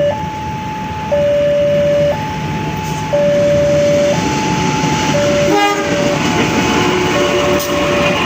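Railway level-crossing warning alarm sounding, alternating between a higher and a lower tone about once a second. From about three seconds in a passing train's rumble builds under it, with a short tonal blast just past the middle.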